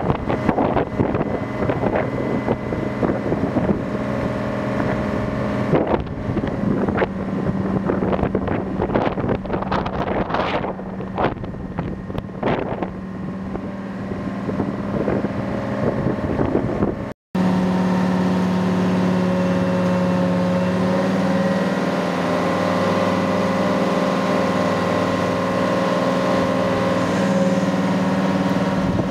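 Detroit Diesel engine of a 1978 P&H 300A hydraulic truck crane running at a steady speed. Wind buffets the microphone for the first half, and after a short break about 17 seconds in the engine sound is smooth and even.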